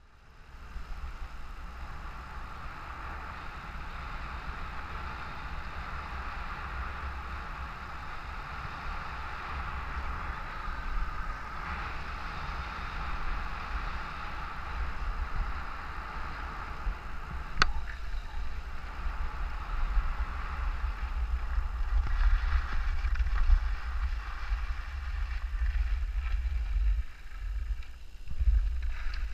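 Skis sliding and carving over groomed snow, a steady scraping hiss that swells and eases with the turns, under a low rumble of wind on the action camera's microphone. A single sharp click sounds a little past halfway.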